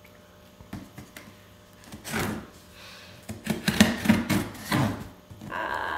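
An open scissor blade drawn along the packing tape on a cardboard box, slitting the tape with a run of scratchy scraping and crinkling strokes. Near the end a steadier squeaky, pitched sound comes in as the tape is cut and pulled.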